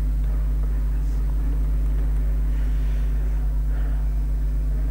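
Steady low electrical hum on the recording, unchanging throughout.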